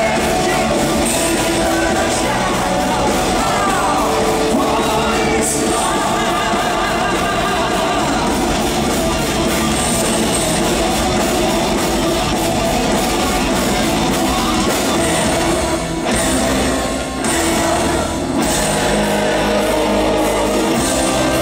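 Live symphonic power metal band playing loud distorted guitars and drums, with a singer belting over them, heard from the audience in a large, echoing hall.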